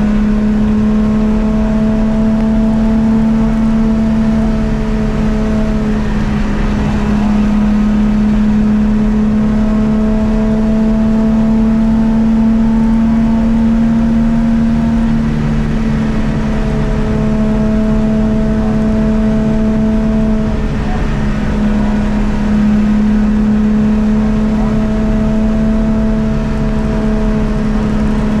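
Rally car's engine heard from inside the cabin, running hard at high speed with a steady, even note, easing off briefly a few times before pulling again.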